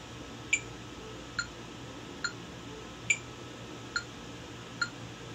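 Metronome clicking evenly at about 70 beats a minute, six clicks in all. Every third click is higher in pitch, marking the start of each bar. No piano notes sound between the clicks.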